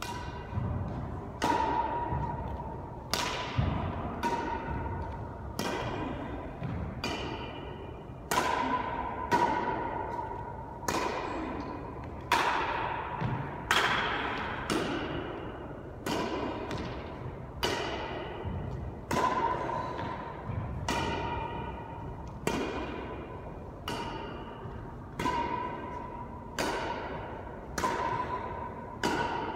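Badminton rackets striking a shuttlecock back and forth in a long rally, about one hit a second. Each hit is a sharp ping that rings briefly and echoes off the bare walls of the enclosed court.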